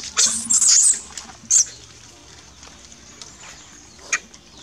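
Young long-tailed macaque screaming in high-pitched squeals that stop about a second in, followed by one short shriek and a brief squeak near the end.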